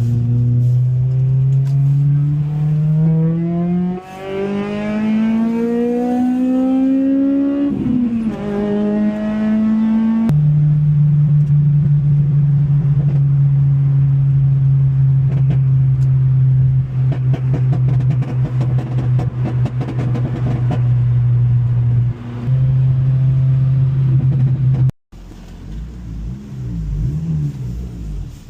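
Car engine pulling up through the revs, its pitch climbing, dropping at a gear change about eight seconds in and climbing again, then holding a steady drone for over ten seconds. The sound cuts off abruptly near the end, followed by quieter mixed noise.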